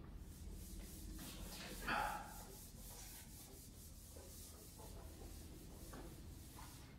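Whiteboard eraser wiped back and forth across the board in quick, faint, repeated strokes, with a brief louder sound about two seconds in.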